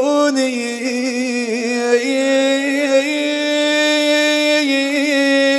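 A man's voice chanting an Arabic lament, holding one long melismatic note that wavers and turns in ornaments and never breaks into words.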